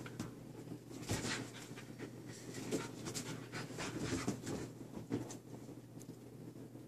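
Two huskies play-wrestling on a leather couch: panting and breathing hard, with scuffling in short, irregular bursts that are busiest in the middle.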